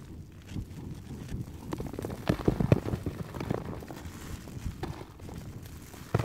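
Irregular dull thuds and scuffs of a search dog's paws working the snow over a snow hole, heard from inside the hole. They come thickest about two to three seconds in.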